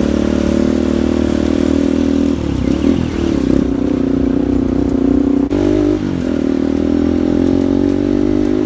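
Bajaj Pulsar RS200 single-cylinder engine running through an aftermarket MT8 muffler made for a Honda Click, the bike being ridden. The note holds steady, wavering briefly about two and a half seconds in and again around six seconds.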